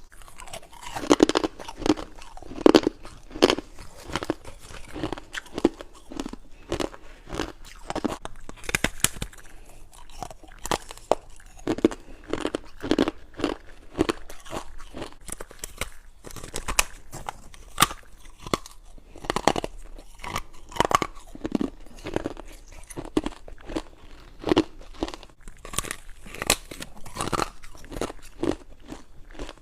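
Frosty ice cubes from a humidifier-style ice tray, coated in freezer frost, being bitten and chewed: a steady run of sharp, irregular crunches, often several close together.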